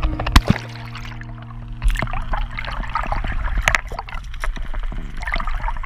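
Water splashing and gurgling around a camera dipped underwater beside a boat's hull, with several sharp knocks, over a low steady hum.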